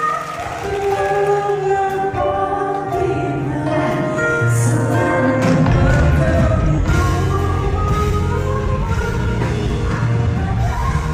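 Live pop music: a singer with a band, held sung notes over a steady bass that grows fuller about halfway through.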